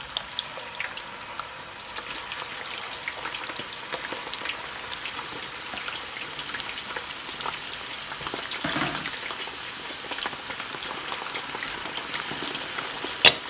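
Potato fries sizzling and crackling in hot oil, with more raw fries tipped in partway through and a slotted spoon stirring them. A sharp click near the end.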